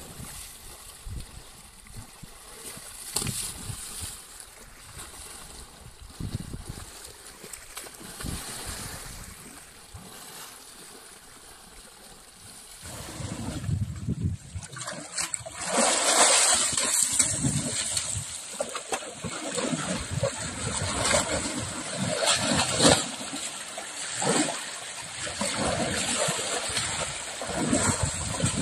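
River water splashing and sloshing as an Asian elephant bathes, swinging and dipping her trunk and heaving through the shallows. The splashing is scattered and light at first, then much louder and heavier from about halfway through.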